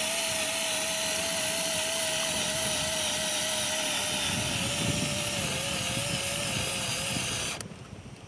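Cordless drill spinning a rubber eraser wheel against the paintwork to strip old number-plate adhesive: a steady high motor whine with a grinding hiss, its pitch sagging slightly under load before it cuts off suddenly near the end.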